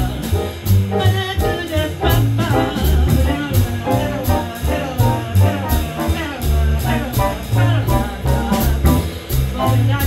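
Live jazz quartet swinging: a wordless, horn-like scat vocal line over upright bass, piano and drums, with a steady cymbal pulse.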